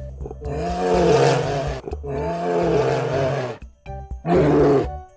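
Bear roaring in three long, deep roars, the last one shorter, with background music underneath.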